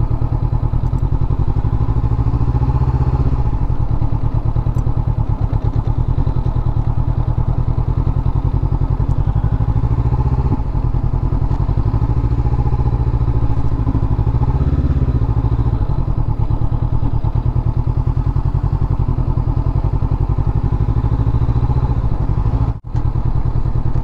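Honda CB500X parallel-twin motorcycle engine running steadily, its note rising and falling gently a few times with the throttle. There is a brief drop in loudness near the end.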